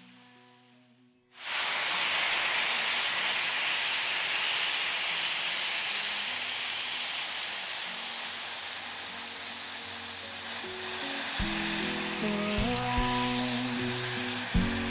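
Chicken thighs sizzling in oil in a nonstick frying pan, a steady hiss that starts abruptly about a second in. Background music comes in under it and grows louder near the end.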